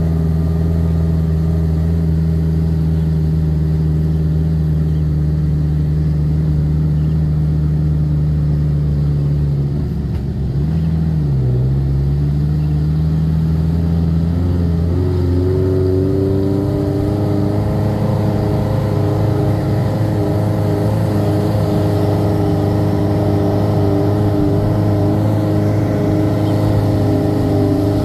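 Jeep engine running steadily under way, heard from on board. About ten seconds in the engine note dips briefly, then settles at a new steady pitch.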